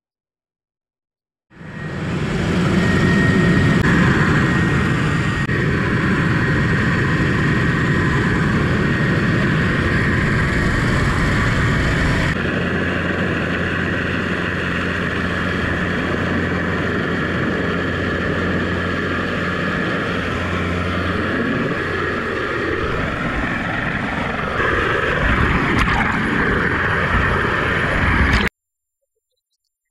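Helicopter rotor and engine noise heard at the open cabin door, a loud steady drone mixed with wind rush. It starts abruptly about a second and a half in, changes sharply partway through, swells a little near the end and cuts off suddenly.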